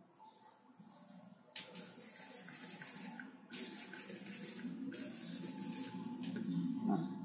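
Hands rubbing: skin brushing against skin and the work surface while rolling and handling small strips of biscuit clay. It starts about a second and a half in and comes in four stretches of about a second and a half each.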